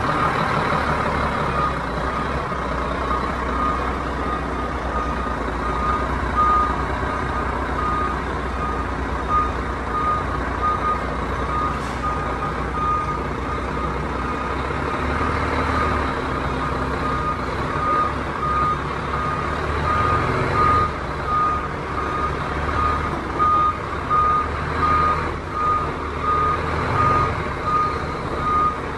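A truck's reversing alarm beeping steadily at one pitch as a DAF tractor unit backs a 20 ft tank-container trailer, over its diesel engine running. The engine swells a few times in the second half.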